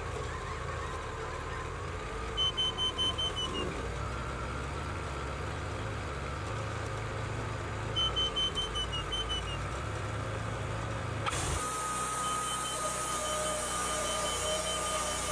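Wood-Mizer portable band sawmill with its engine running steadily, and two short runs of rapid beeps. About eleven seconds in the sound changes suddenly to a steady higher whine with hiss as the band blade is engaged and the saw head moves up to the log.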